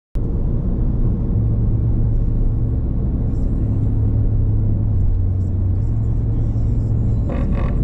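A car's engine and road noise heard from inside the cabin while driving at a steady speed: a loud, steady low drone.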